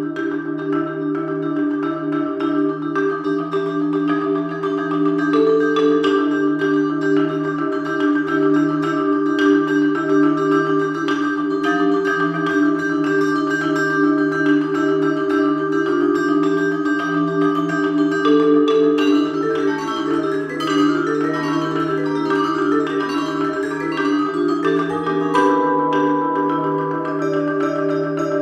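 Vibraphone and marimba duo playing a contemporary classical passage: both instruments hammer fast, even repeated-note figures on the same few pitches, and the vibraphone's tones ring on above the dry marimba strokes.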